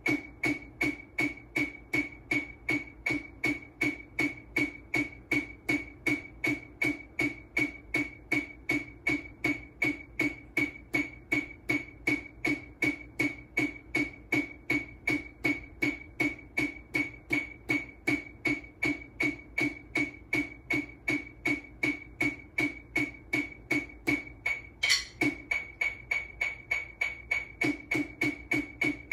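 Wooden drumsticks playing low tap strokes on a snare drum, alternating-hand exercise in even eighth notes at 80 BPM, a steady train of sharp hits. Near the end there is a short pause with one louder hit, then the strokes resume faster at 100 BPM.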